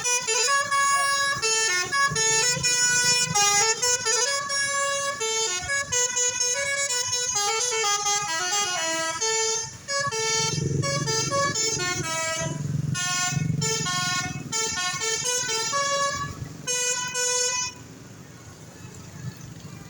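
Bus 'telolet basuri' musical air horn playing quick runs of changing notes, like a tune, with a low rumble underneath for several seconds in the middle; the horn stops about 18 seconds in.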